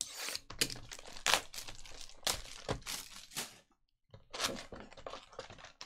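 Plastic shrink wrap on a trading-card box being slit with a box cutter and torn and crumpled off: a run of crinkling and tearing rustles, a brief pause a little before four seconds in, then more crinkling.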